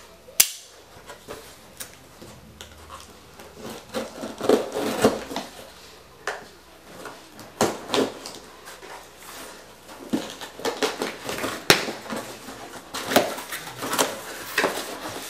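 Packing tape being picked at and torn off a cardboard shipping box, and the flaps pulled open: an irregular run of scratches, rips and knocks, with one sharp click about half a second in.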